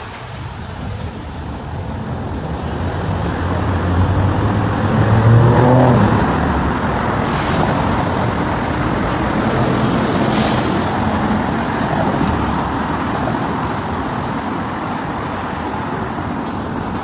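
City street traffic: road vehicles running past, one passing close and loudest about five or six seconds in, then steady traffic noise.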